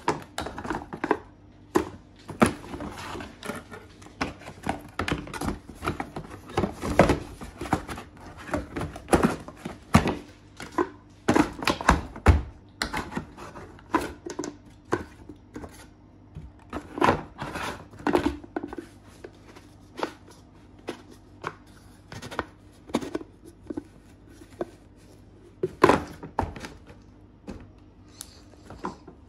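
Unpacking a Bosch PFS 5000 E paint sprayer: its hard plastic parts knock and click against each other and the cardboard box as they are handled, in irregular bursts with rustling of packaging in between.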